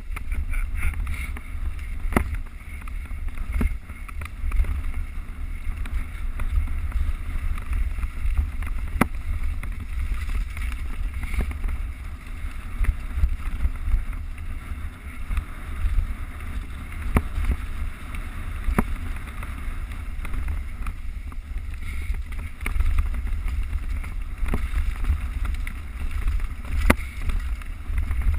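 Wind buffeting a GoPro's microphone while a mountain bike is ridden along a trail, with a steady hiss of tyres on dirt and scattered sharp knocks as the bike jolts over rough ground.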